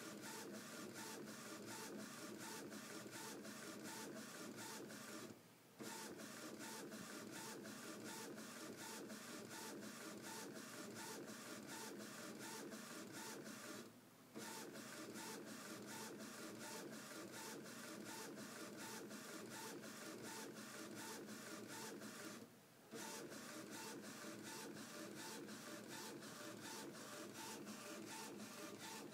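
An Epson Stylus S22 inkjet printer, converted into a homemade direct-to-garment printer, printing as its print head carriage sweeps back and forth. It makes a rapid, even mechanical ticking, broken by three brief pauses about eight seconds apart.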